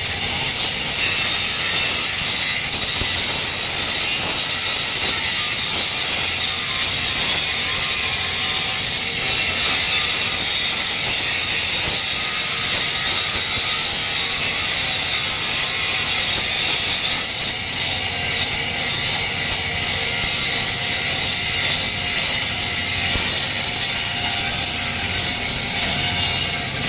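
Flux-cored arc welding with CO2 shielding gas: the arc crackles and sizzles steadily and without a break.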